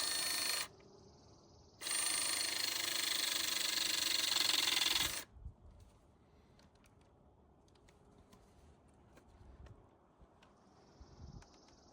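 Gator battery-powered hydraulic crimping tool running as it compresses a barrel splice onto an aluminum service-cable conductor: a short burst of steady motor whine, then about three and a half seconds more, cutting off suddenly as the tool reaches full pressure and releases. A few faint clicks follow.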